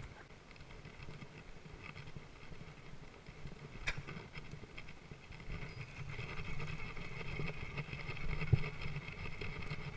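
Quiet rustling and handling noise, with a faint steady high hum behind it, one sharp click about four seconds in and a dull thump about eight and a half seconds in.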